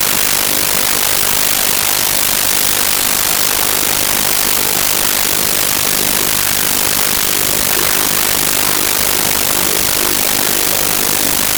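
Loud, steady hiss of static noise from a faulty audio recording, with no game sounds standing out through it.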